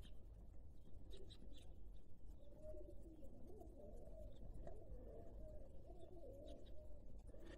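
A flock of feral pigeons cooing faintly, many low wavering coos overlapping, growing fuller about two and a half seconds in.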